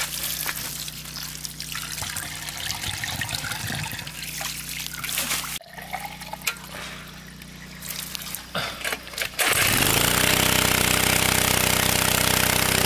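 Water poured and trickling into the priming port of a small petrol-engine water pump. About nine and a half seconds in, the pump's engine starts, rising quickly to a loud, steady run as the primed pump begins to push water out.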